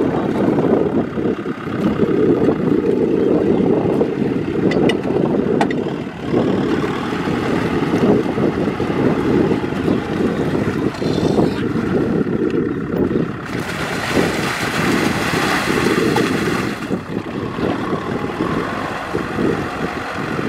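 Kubota M6040SU tractor's diesel engine running steadily while its tyres and rear tiller churn through deep, waterlogged mud. A louder hiss comes in for about three seconds past the middle.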